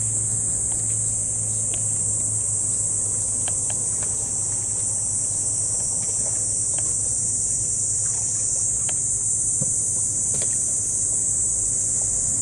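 Steady high-pitched drone of an insect chorus, with a low hum beneath and a few faint clicks.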